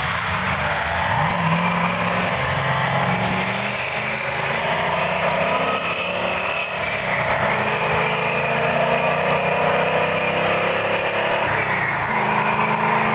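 Big-block American muscle car V8 engine running with a deep, loping note, its pitch rising and falling as it is revved.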